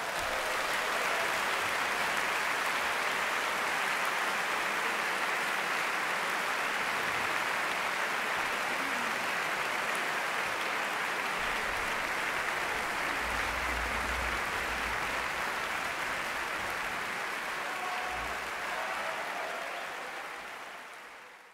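Concert audience applauding after the final chord of a symphony performance: a dense, steady clapping that fades away near the end.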